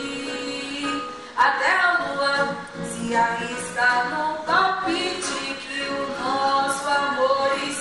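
A woman singing a cover of a Brazilian MPB song, her voice gliding between held notes throughout.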